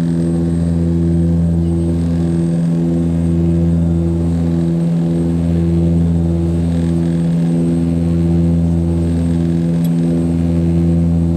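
Twin turboprop engines and propellers of an Antonov An-24RV heard inside the passenger cabin: a loud, steady, deep drone with a slow throb that comes round about every two and a half seconds.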